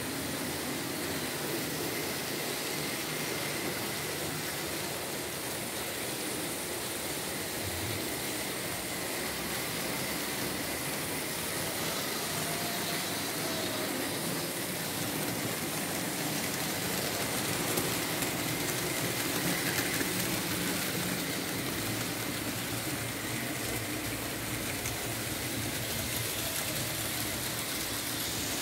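Märklin H0 model trains running on a layout: a steady whir of small electric motors and metal wheels rolling over the track.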